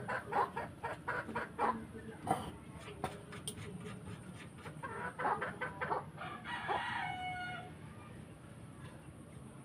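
Chickens clucking in a rapid run of short calls, with a rooster crowing about seven seconds in.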